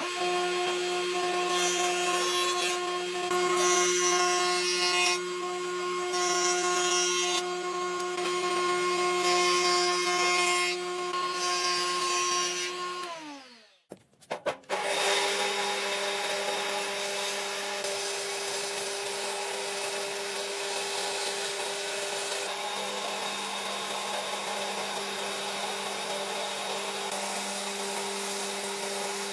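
Electric woodworking power tool running and cutting into wood in repeated passes, with its motor hum steady underneath. About 13 seconds in the motor winds down and stops, then starts again a second or so later and runs steadily, with the wood noise now even rather than in strokes.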